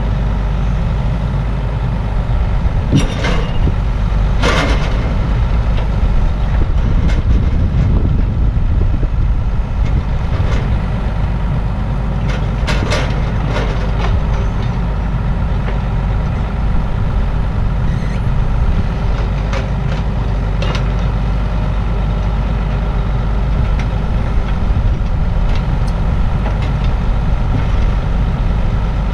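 Tractor diesel engine, likely the Zetor 7245, running steadily throughout, with a few sharp knocks or clanks over it at irregular moments.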